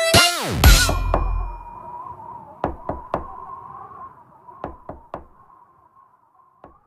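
The song's music ends in the first second with a falling pitch glide and a low thump. Then come sharp knocks in quick groups of three over a faint hum that slowly fades.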